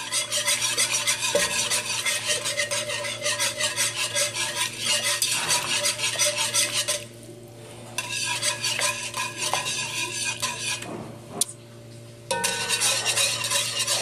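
Wire whisk stirring water in a pot, quick repeated scraping strokes against the pan, stopping briefly twice.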